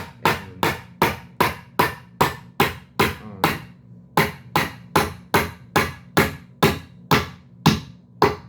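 Repeated hammer blows, about two and a half a second, each ringing briefly, with a short break about four seconds in.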